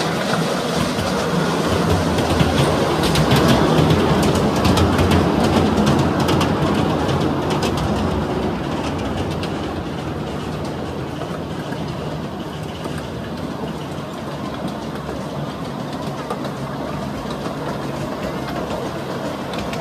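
Ride-on miniature railway train running along its narrow-gauge track, wheels rattling and clicking on the rails. It is louder from about two to seven seconds in, then runs on more evenly.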